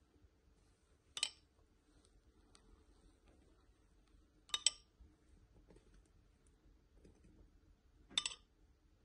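A metal spoon clinking against a bowl three times, about three and a half seconds apart, while scooping syrup.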